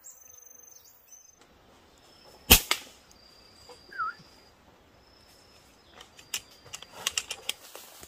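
A single sharp shot about two and a half seconds in, fired at feeding birds, with a second smaller knock right after it. A bird gives one short rising chirp a little later, and a quick run of light clicks and rustles follows near the end.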